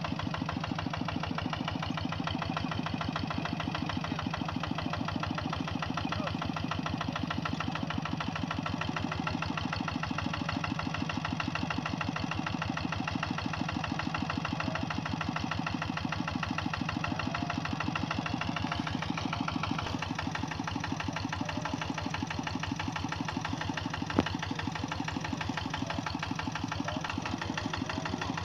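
Kubota G1000 hand tractor's diesel engine running steadily with a fast, even pulse. Once, late on, there is a single sharp click.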